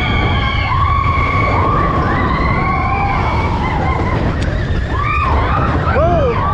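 Big Thunder Mountain Railroad mine-train roller coaster running at speed: a heavy, steady rumble and wind buffeting the microphone, with riders whooping and screaming in several rising-and-falling cries, one near the end.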